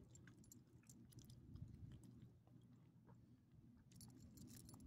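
Small dog chewing and licking bits of hot dog: faint, scattered wet mouth clicks, thickening into a quick cluster near the end, over a faint low rumble.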